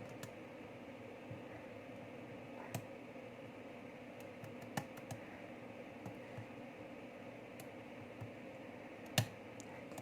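A few sharp, isolated metal clicks from a lock pick working the pin stack of a six-pin euro cylinder under tension, as pins are lifted and set one at a time; the loudest click comes about nine seconds in, over a steady faint hum.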